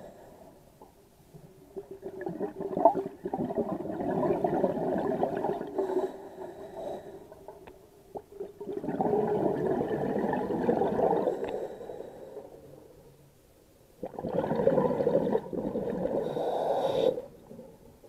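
Scuba regulator exhaust bubbles heard underwater: three long bubbling exhalations, each lasting a few seconds, with quieter pauses between them.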